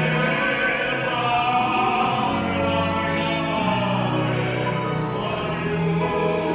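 Operatic singing with accompaniment: several voices holding long, sustained notes together.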